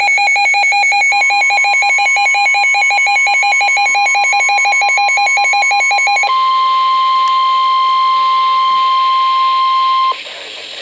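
Weather radio alert: a rapid electronic alarm beeping over the steady 1050 Hz warning tone. The beeping stops about six seconds in, leaving the tone alone until it cuts off near the end. It announces a tornado warning broadcast.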